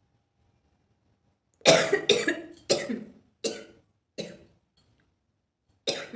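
A person coughing hard in a fit of about six coughs, starting about a second and a half in. The first cough is the loudest, and there is a pause before the last. The coughing is provoked by smoke from dry red chilli being burnt.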